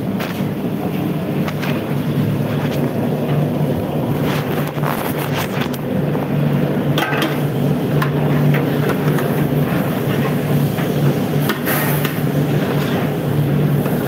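Steady low roar of commercial kitchen equipment, with several sharp clinks and scrapes of a long metal spatula against large steel cooking pots.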